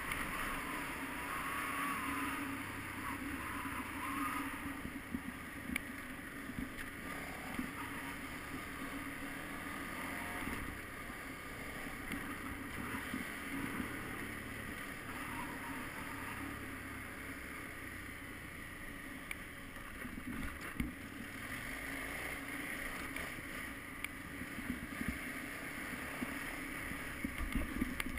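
KTM 990 Adventure's V-twin engine running at a steady pace while riding a dirt track, heard from a helmet-mounted camera, under an even rushing noise.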